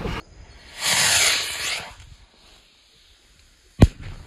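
Firecrackers strapped to a toy airplane going off: a hissing spray of sparks about a second in, then one sharp bang near the end. They go off one at a time rather than together.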